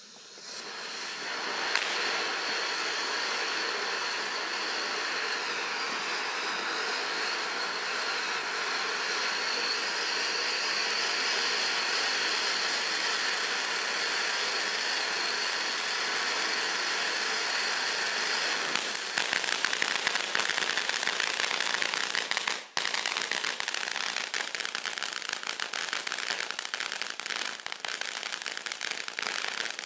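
Miracle Fireworks Q-Tee fountain burning: a steady rushing hiss of spark spray that builds up over the first couple of seconds after lighting. About nineteen seconds in it changes to dense crackling as the fountain moves into its crackling-spark effect, with a brief drop-out a few seconds later.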